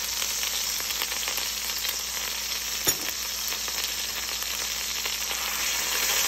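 Beef roast searing in hot avocado oil in an enameled cast-iron Dutch oven: a steady sizzle with fine crackling, and one sharp click about halfway through.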